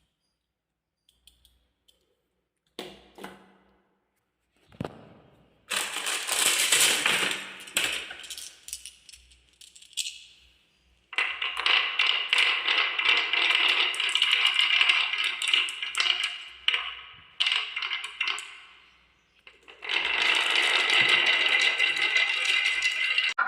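Marbles rolling and clattering down a wooden HABA marble run. A few single clicks come first, then long stretches of continuous rattling with short gaps, as marbles run down the slopes and knock against the track.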